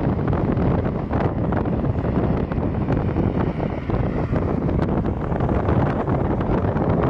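Gusty wind buffeting the microphone, a loud, unsteady rumble.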